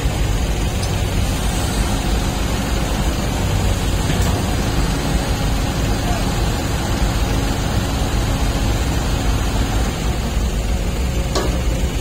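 Diesel engine and hydraulics of a SANY crawler excavator running steadily under load as it lifts and swings a bucket of wet mud.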